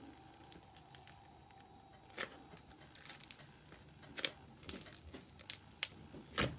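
Fingers poking and pressing into a crunchy butter-slushy slime in its tub, giving faint, scattered crackles and squishy pops.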